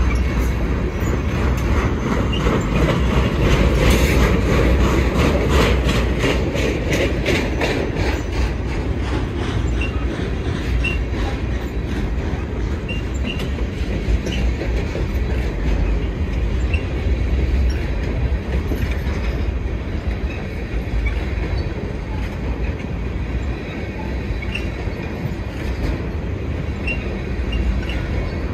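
Freight train of flatcars rolling past with a steady rumble, the wheels clicking rapidly over rail joints in the first several seconds before settling into plain rolling noise.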